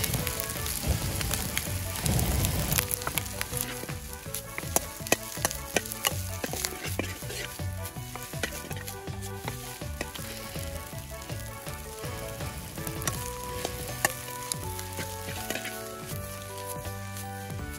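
Fried rice sizzling and being stir-fried in a carbon-steel wok over a campfire, with frequent sharp clicks as it is tossed and scraped.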